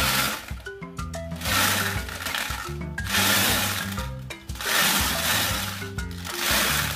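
Background music with a simple tune over swells of rattling, about every one and a half seconds, from glass marbles tumbling inside the plastic drum of a toy Bruder cement-mixer truck as the drum is turned by hand.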